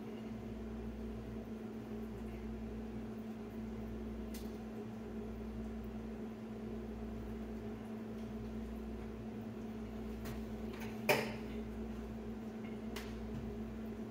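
Steady electric hum of a kitchen fan, with a spoon tapping a metal pot a few times while stirring and one louder knock about eleven seconds in.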